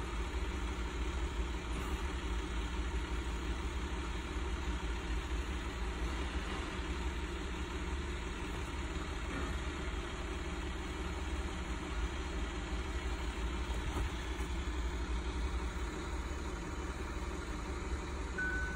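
Steady low rumble with a hiss, like machinery or an engine running in the background, with no change throughout. A brief single high beep near the end.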